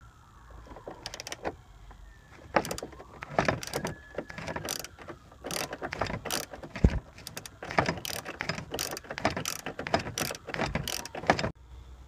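Hand ratchet wrench with an extension and socket clicking in short runs as it is swung back and forth, loosening the bolt of a seatbelt's upper anchor. The clicking stops abruptly near the end.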